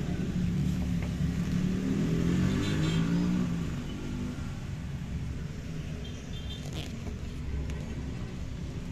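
Motor vehicle engine rumbling low, rising in pitch over the first three to four seconds as it revs up, then settling to a steadier, slightly quieter rumble.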